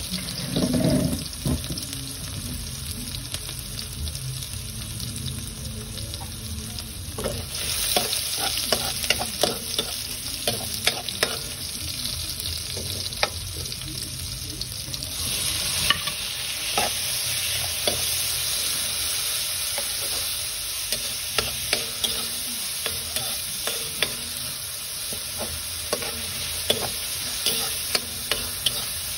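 Garlic and red onion frying in oil in an aluminium wok, a steady sizzle, with a metal ladle clicking and scraping against the pan as they are stirred. A low thump comes near the start, and the sizzle grows louder about halfway through.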